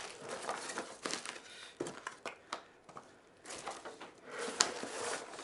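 Packaging being handled during unpacking: irregular crinkling and rustling with scattered small clicks and knocks, the sharpest click a little over four and a half seconds in.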